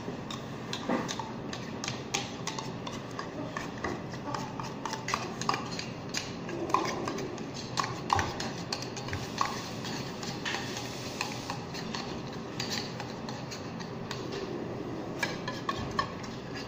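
Irregular light clinks and taps of a metal milk can and a small cup, handled while condensed milk is poured into a bowl of beaten eggs, over steady background noise.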